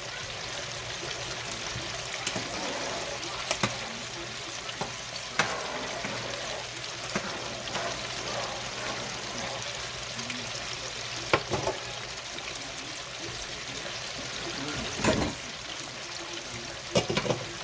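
Chicken wings deep frying in hot oil: a steady sizzling hiss, with a few sharp clicks of utensils against the pot now and then.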